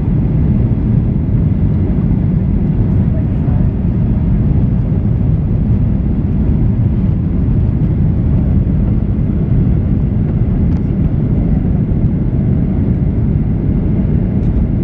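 Steady, even low-pitched noise of a Boeing 737-800 in flight, its CFM56 engines and the airflow past the fuselage, as heard inside the cabin.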